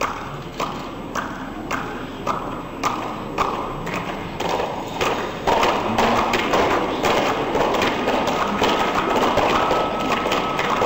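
Spectators clapping in a steady rhythm, about two claps a second, which swells about five seconds in into louder, fuller applause from many hands.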